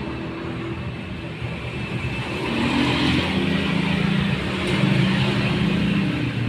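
A motor vehicle engine running close by, growing louder about two seconds in and staying loud.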